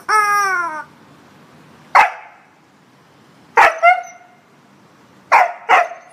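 Siberian husky barking in short sharp barks: one at about two seconds, then two quick pairs. At the very start a rubber chicken toy squawks once with a falling pitch.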